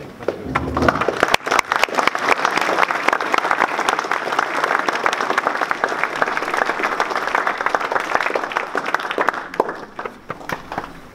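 An audience clapping, starting about a second in and dying away near the end.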